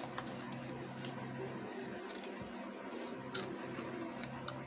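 Foil seal of a Lay's Stax chip can being peeled back and a chip pulled out, heard as a few soft crackles and clicks over a low steady hum.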